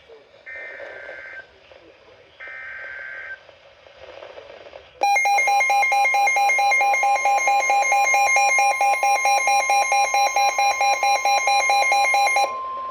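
Emergency Alert System tones: two short bursts of warbling data-header tones, then, about five seconds in, a loud pulsing alert tone over a steady tone. Near the end the pulsing stops and the steady tone carries on more quietly. The tones announce a new severe weather warning.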